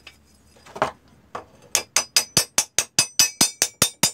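A hammer striking the steel pivot rivet of an old rusty pipe wrench. There is one knock just under a second in, then a quick, even run of about a dozen sharp metallic strikes, some five a second.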